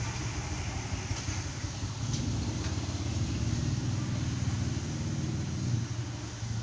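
Steady low mechanical hum, with a couple of faint clicks.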